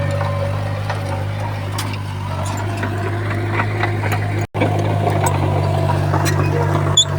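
Bulldozer diesel engine running steadily, with scattered light clanks and clicks over it. The sound drops out for an instant about halfway through.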